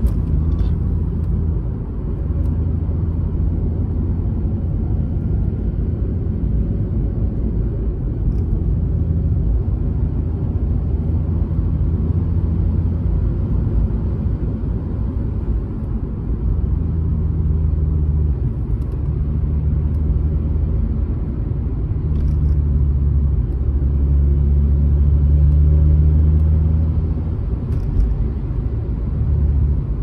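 Cabin sound of a Mazda RX-8 being driven: a low drone from its rotary engine mixed with road rumble. The drone shifts with engine speed several times and grows louder for a few seconds past the middle.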